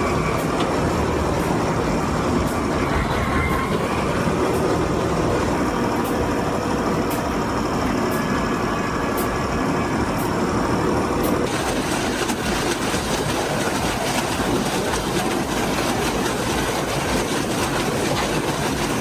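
Heavy machinery running: a large engine with a steady mechanical din and faint ticking, its sound changing about eleven seconds in.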